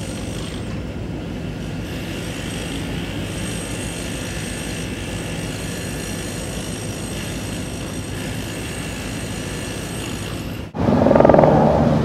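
Steady, low background rumble of distant engine noise, with faint, steady, high-pitched tones above it. Near the end it cuts off abruptly and gives way to a louder rumble.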